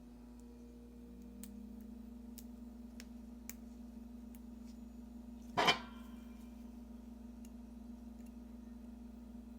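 Small clicks and ticks of tiny watch parts and tools being handled on a digital watch module during battery fitting, with one loud sharp click a little past halfway. A steady low hum runs underneath.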